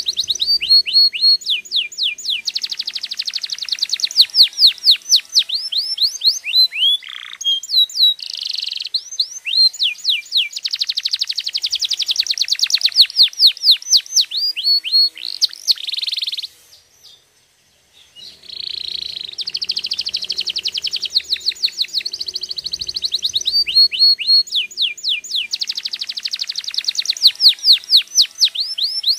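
Domestic canary singing: long tours of fast, repeated falling whistled notes and trills, with a short break of silence a little past the middle before the song starts again.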